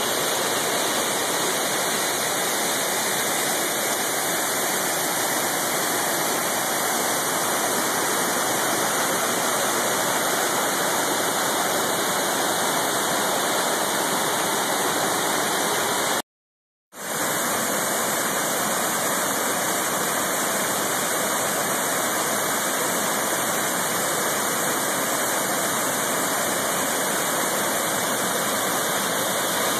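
Waterfall rushing steadily, a dense even roar of falling water. It drops out for under a second just past the middle, then resumes as before.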